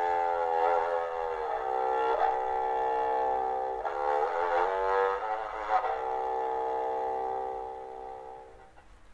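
Bass shaoqin, a bass erhu, bowed in a slow Chinese minor-mode improvisation: a few sustained notes joined by bow changes, ending on one long held note that fades away near the end.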